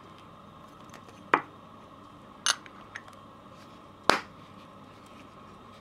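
Metal case back of a pocket watch being closed and pressed shut by hand, snapping with three sharp clicks and a fainter one; the last click, about four seconds in, comes as the thumbs press the back home.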